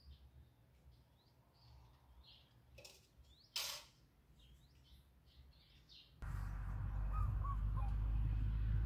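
Small birds chirping faintly in short repeated calls, with one brief, louder harsh sound about three and a half seconds in. About six seconds in, a steady low rumble suddenly takes over.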